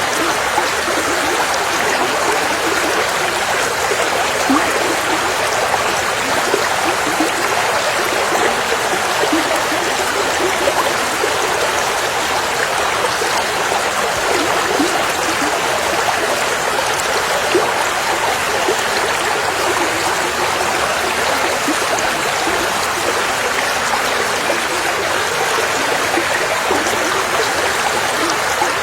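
River water running steadily over rocks, a continuous rush with small gurgles and bubbles throughout.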